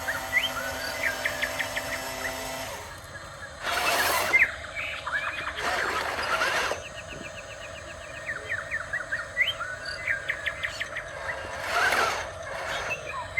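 Birds chirping in quick series of short rising notes, with three short bursts of noise about four, six and twelve seconds in, over a faint steady hum.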